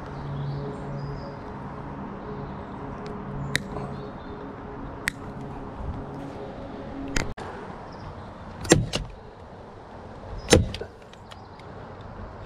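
A low, steady, engine-like hum that cuts off suddenly about seven seconds in, with a few sharp clicks and knocks over it; the two loudest knocks come in the last few seconds.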